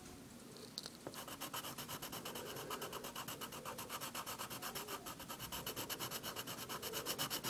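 Colored pencil shading on paper in quick, even back-and-forth strokes, a faint rhythmic scratching that starts about a second in.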